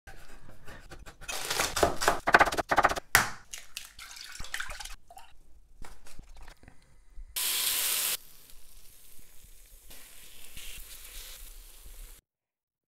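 Food-preparation sounds: knife strokes on a wooden cutting board and chopsticks clicking and stirring in a steel saucepan, densest about one to three seconds in. About seven and a half seconds in comes a loud hiss lasting about a second, then softer sizzling from the takoyaki pan, which stops abruptly.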